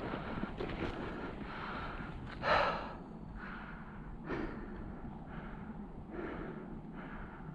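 A climber's heavy breathing close to the microphone, a rushing breath about once a second, the loudest about two and a half seconds in.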